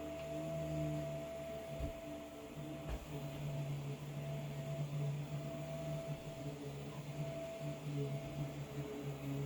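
Vacuum cleaner running in the next room, muffled through the wall: a steady motor hum whose tones waver slightly as it is pushed about, with a couple of faint low bumps about two and three seconds in.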